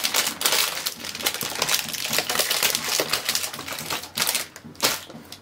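Plastic packaging crinkling in the hands: a dense run of fast, sharp crackles lasting about four seconds, then two or three single crackles near the end.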